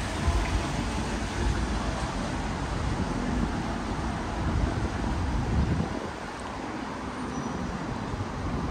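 City street traffic: cars passing, a steady mix of engine and tyre noise, easing a little about six seconds in.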